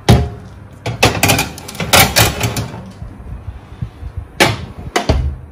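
Metal baking trays being slid into an oven and onto its wire racks: a run of sharp metallic knocks and clatters, with two louder knocks near the end.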